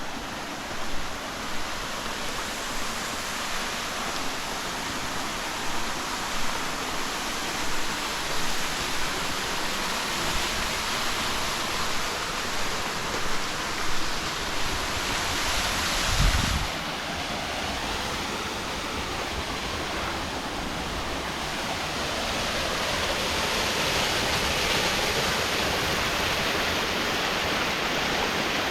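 Waterfall running, a steady hiss of falling water. Through the first half there is a series of short low bumps, the loudest about sixteen seconds in.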